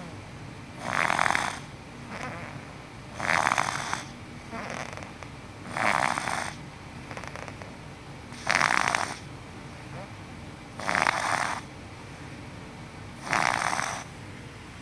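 Six-month-old baby snoring in his sleep: six loud snores at an even pace, about one every two and a half seconds, with softer sounds between them.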